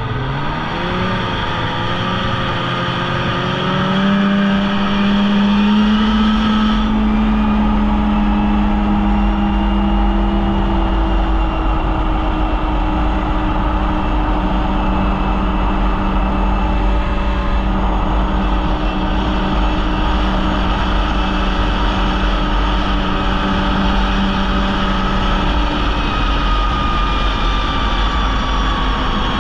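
Polaris Indy snowmobile engine running under way: it climbs in pitch over the first few seconds, then holds a steady speed with small wavers, over a constant rushing noise.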